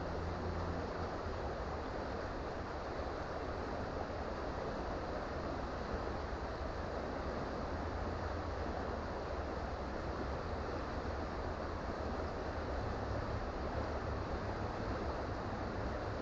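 Creek water flowing in a steady, unbroken rush.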